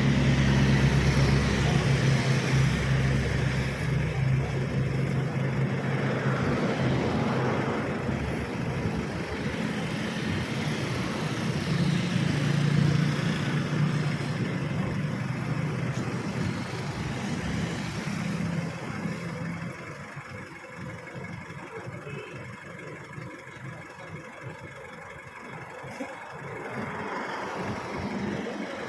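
A vehicle engine running steadily close by, then dropping away about two-thirds of the way through to quieter traffic noise.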